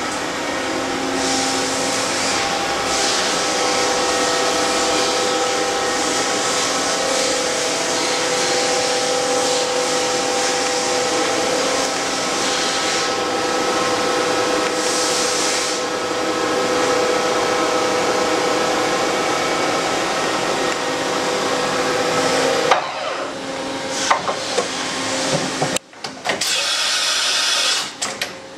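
Okuma MC-50A CNC vertical machining center running: a steady mechanical hum with several whining tones. About 23 seconds in the tones stop, a few knocks follow, then a hiss for about two seconds before it drops quieter.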